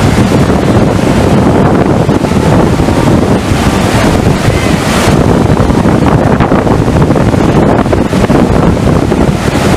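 FlowRider surf simulator's pumped sheet of water rushing up the ride surface in a loud, steady rush of white water, with wind buffeting the microphone.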